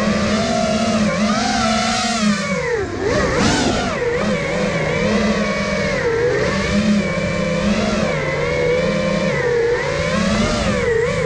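Motors and propellers of a 5-inch freestyle FPV quadcopter (iFlight Nazgul Evoque), heard from its onboard camera: a steady whine whose pitch rises and falls with the throttle. About three seconds in the pitch drops sharply and then climbs again as the throttle is cut and punched back up.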